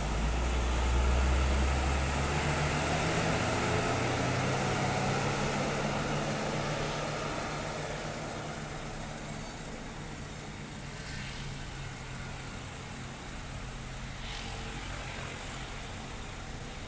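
An intercity coach's diesel engine pulling away close by, loudest in the first few seconds, its pitch rising slightly as it gathers speed, then its drone fading off over the following seconds.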